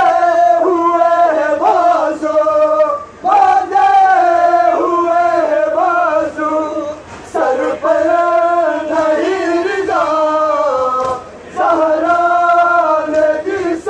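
Men chanting a noha, a Shia lament for the martyrs of Karbala, in long sung phrases. Each phrase is broken by a short pause about every four seconds.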